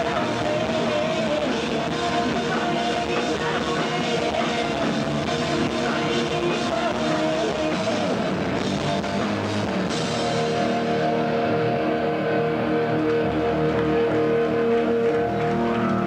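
Rock band playing live with electric guitars and drum kit. About ten seconds in, the crashing high end dies away and held notes ring on.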